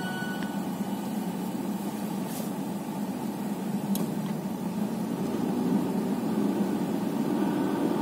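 Steady low hum inside a car. The last note of a Nokia 1110's startup tune dies away just at the start, and there are two faint clicks in the middle.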